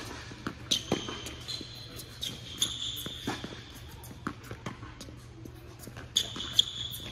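Tennis rally on an indoor hard court: a tennis ball struck by racquets and bouncing in sharp pops, with tennis shoes squeaking on the court surface several times, about a second in, around two to three seconds in, and again near the end.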